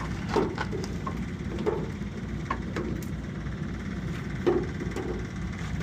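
An engine idling with a steady low rumble, with about seven short knocks scattered through it, the loudest about half a second and four and a half seconds in.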